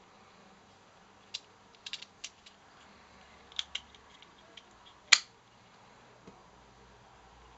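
Small plastic clicks from handling a Ford remote key fob: a few light clicks, then a single sharp snap about five seconds in.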